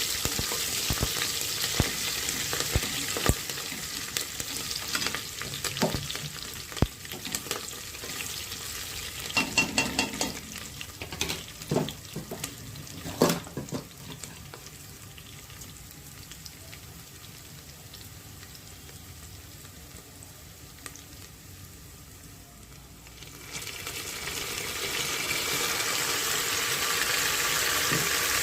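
Food frying and sizzling in a hot pan while being stirred, with a spoon clicking and scraping against the pan. The sizzle dies down about halfway through, then a louder steady hiss builds up again near the end.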